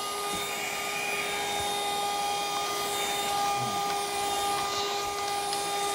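Rechargeable handheld mini vacuum cleaner running steadily: a constant motor whine over a hiss of air.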